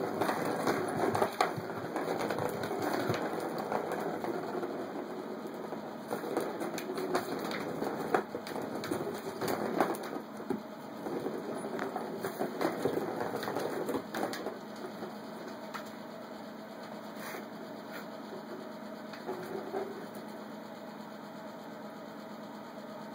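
Plastic ball rolling and rattling around the circular plastic track of a Turbo Scratcher cat toy as a cat bats it, with many small clicks. It dies down to a quieter rumble a little past halfway through.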